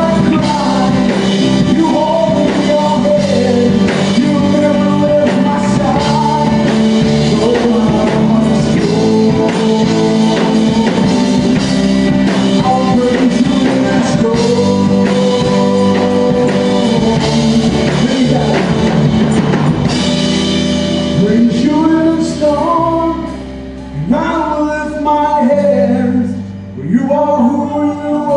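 Live gospel band playing with a singer: drum kit, guitar and bass under a sung melody. The drums drop away about two-thirds of the way through, leaving voice and sustained instruments with a few brief dips.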